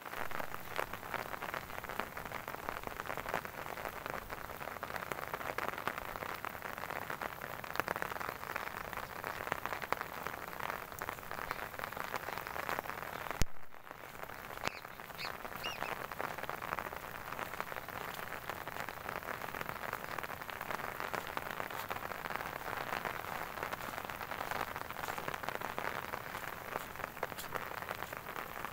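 Steady rain falling on grass, mud and puddles: a dense, even patter of drops. About halfway through comes one sharp click, and the rain sound briefly drops away before it resumes.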